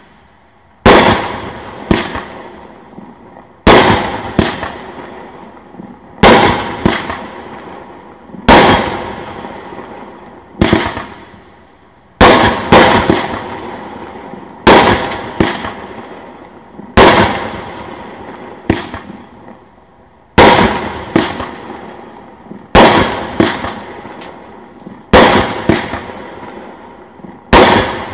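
A 500-gram Fire Factory Atomic Willows 16-shot firework cake firing its willow shells at a steady pace: about a dozen sharp bangs roughly every two to two and a half seconds, several doubled, each fading out in a trailing tail.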